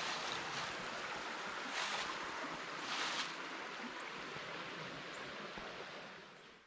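Rushing water of the Sipsey Fork, a steady hiss with a few brief louder swells. It grows gradually fainter over the second half.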